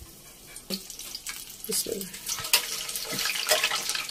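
Chicken pakora batter deep-frying in hot oil, sizzling and crackling. It grows much louder from about halfway through as more batter goes into the oil.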